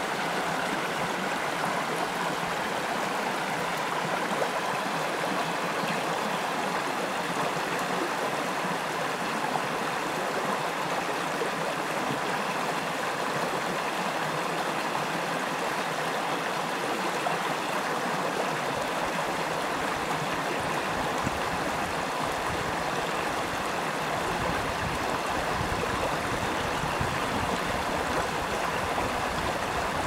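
Creek water rushing and splashing over a low cascade of rocks, a steady, unbroken rush. A deeper low rumble fills in under it during the last third.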